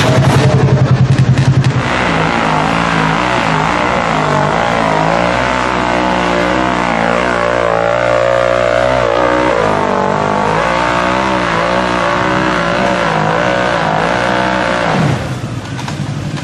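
Off-road vehicle engine revving, its pitch rising and falling repeatedly. The sound changes abruptly about two seconds in and drops in loudness near the end.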